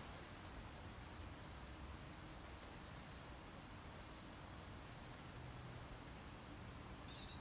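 Faint, steady high-pitched chirring of crickets, one even tone, with a tiny click about three seconds in.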